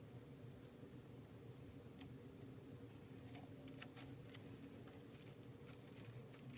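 Faint scattered clicks and small crackles from slime being pressed and handled, more of them together a little after the midpoint, over a low steady hum.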